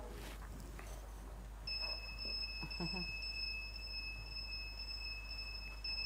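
A steady, high-pitched electronic tone starts about a second and a half in and holds without change.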